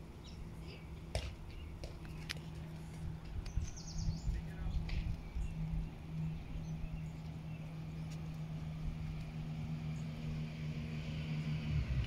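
Birds chirping, with a short high trill about four seconds in, over a steady low hum and a low rumble; the hum grows louder near the end.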